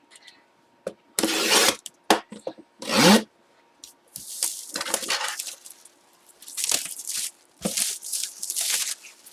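A cardboard collectible box being handled and opened: a series of rustling, scraping bursts of packaging noise, the loudest about a second and a half and three seconds in, with lighter rustling after.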